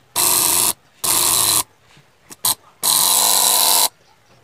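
Electromagnetic coil and vibrating armature of a KADA 1250G compressor buzzing loudly in three bursts as test leads switch power on and off, the third burst about a second long, with a short crackle before it. The buzz shows that the freshly soldered coil is working.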